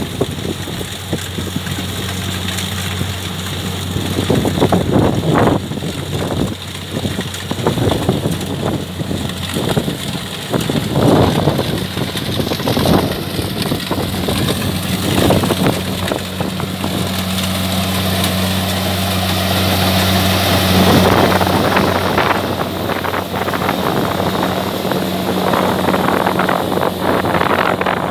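An engine running steadily with a low, even hum, while wind buffets the microphone in gusts.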